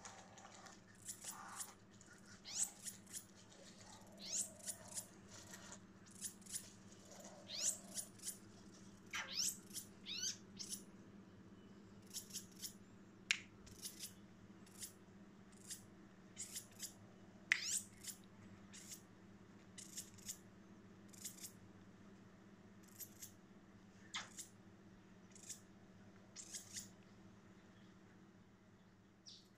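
Bushbaby calling: repeated sharp high-pitched squeaks, many dropping quickly in pitch, about one or two a second and growing sparser toward the end.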